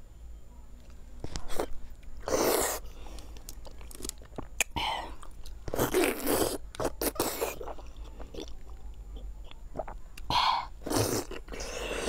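Close-up eating sounds as a large soft braised chunk is bitten and chewed: wet mouth noises in several loud bursts of under a second each, spread through the clip, with small clicks between.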